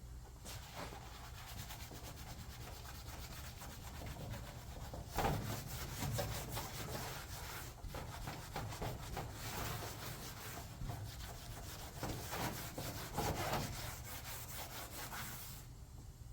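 Hand rubbing of an aluminum race-car body panel with an abrasive: a steady scratchy scouring that starts about half a second in, swells twice and stops near the end.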